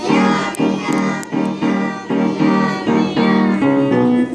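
A song with an even rhythm of short notes: children's voices singing with instrumental accompaniment.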